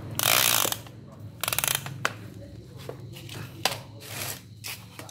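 A steel tape measure being pulled out: two brief rattling runs in the first two seconds, the second a fast stream of fine clicks as the blade slides out, then a few sharp clicks and taps as it is handled.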